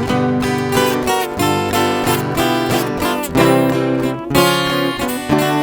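Instrumental introduction of a sertanejo song played on viola caipira and acoustic guitar, the strings plucked and strummed in a steady rhythm over a bass line.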